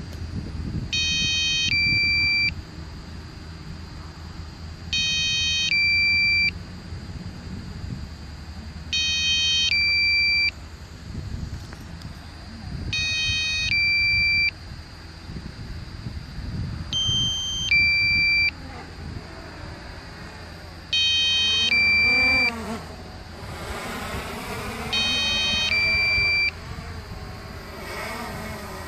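Drone remote controller beeping a low-battery alarm, a cluster of high tones then a single high tone, repeating about every four seconds, while the drone returns home. Wind rumbles on the microphone, and from about 21 seconds in the drone's propeller whine rises and falls in pitch as it comes in close.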